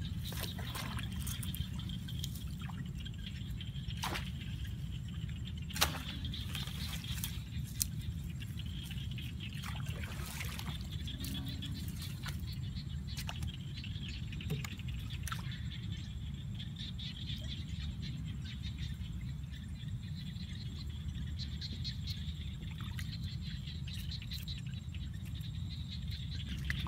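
Scattered splashes and knocks of someone working in shallow muddy water, over a steady low rumble and a faint steady high hum.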